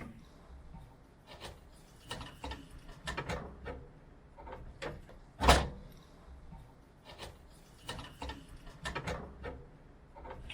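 Scattered light clicks, taps and rubbing of hand work on a copper hydraulic pipe for the Hydragas suspension, with one louder knock about five and a half seconds in.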